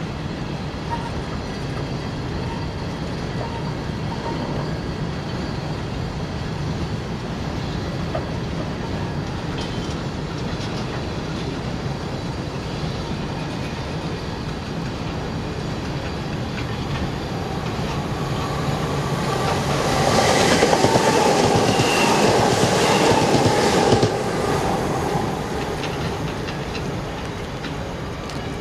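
Freight train wagons, Cargowaggon covered vans, rolling steadily past on the rails. Past the middle the noise swells for several seconds, with high ringing tones over the rumble, then eases again.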